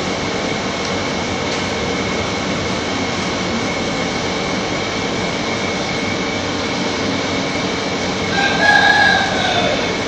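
A rooster crows once near the end, a call of about a second and a half that drops in pitch as it ends, over steady background noise.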